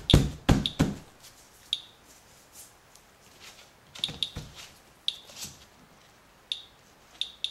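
Radalert Inspector Geiger counter clicking at random, uneven intervals, about ten short high clicks over several seconds. The slow count rate matches a reading of about twice background radiation. In the first second, a few louder knocks from gloved hands handling the counter.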